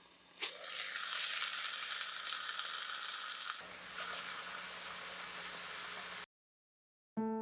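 Shumai sizzling in a hot frying pan, starting suddenly about half a second in, easing slightly past the midpoint and cutting off abruptly; piano music begins near the end.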